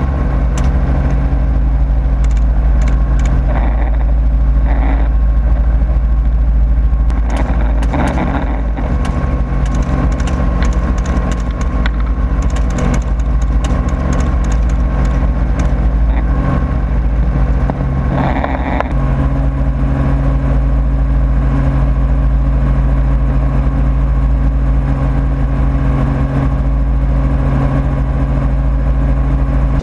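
Helicopter in flight, heard on board: a loud, steady drone of engine and rotor with heavy low-end thrum, shifting slightly in tone about two-thirds of the way through.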